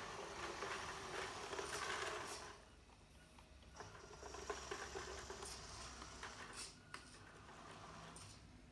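Electric drive motor and gearbox of an RC model tractor whirring as it drives across carpet towing an implement. Louder for the first two seconds or so, then fainter, with a few light clicks.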